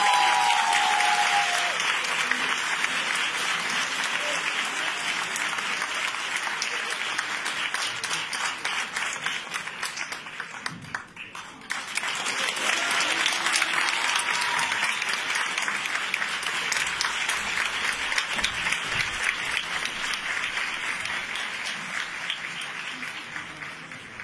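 Audience applauding steadily. The clapping dips briefly about halfway through, swells again, and fades away near the end.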